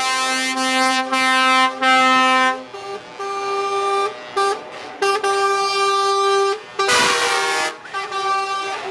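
Truck air horns blasting in long chords, several horns sounding together, broken by short gaps. About seven seconds in there is a brief rushing hiss.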